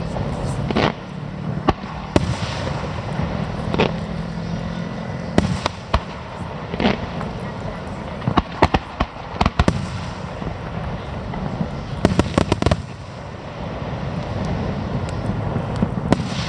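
Fireworks display: shells bursting with sharp bangs at irregular intervals. Rapid volleys of crackling reports come about halfway through and again about twelve seconds in.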